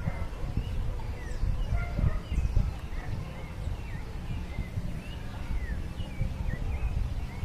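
Birds chirping in many short, scattered notes, over a low, uneven rumble.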